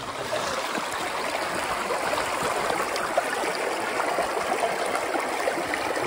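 Shallow, rocky stream running over stones close by: a steady flow of water with no break.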